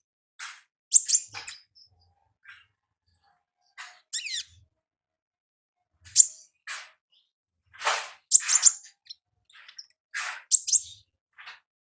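Konin ninja bird calling in its wild 'ngalas' style: short, high, sharp chirps at irregular intervals, some in quick clusters of two or three, with one falling sweep about four seconds in.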